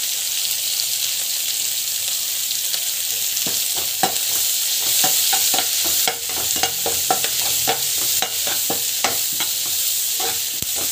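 Onions, green chillies and cashews sizzling in hot oil as a perforated steel ladle stirs them around the pan. From about a third of the way in, the ladle adds a quick run of clicks and scrapes against the pan over the steady sizzle.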